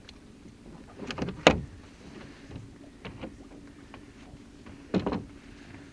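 Wooden oar knocking and creaking in its oarlock against the boat's side as the boat is rowed, in three bursts about two seconds apart, the loudest about a second and a half in.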